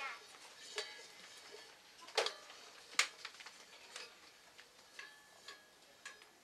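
A few light, sharp clicks and knocks at irregular intervals, the two loudest about two and three seconds in.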